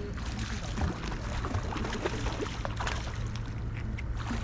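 Sea water lapping and splashing against a concrete seawall, with a steady low wind rumble on the microphone and many small irregular ticks.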